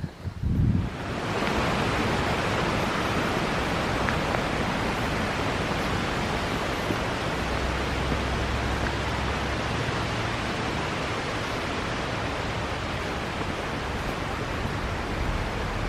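Steady rushing of flowing water, coming in about a second in and holding even.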